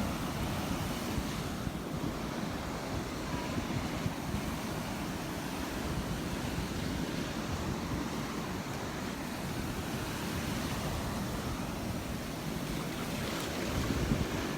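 Gulf surf breaking and washing onto the sand, with wind buffeting the microphone; the wind rumble picks up near the end.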